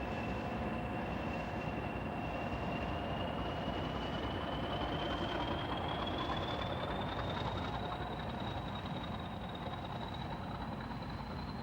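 Train running with a steady rumble and a high whine that slowly rises in pitch, with a lower steady tone beneath it.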